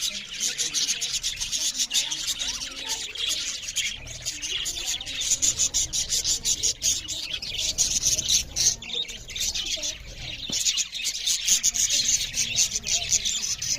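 A group of budgerigars chattering, a dense run of rapid overlapping chirps and warbles that keeps up without a break.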